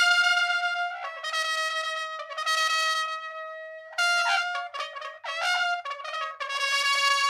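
Brass intro music, a fanfare-like melody: long held notes, a quick run of short notes about four seconds in, then another long held note.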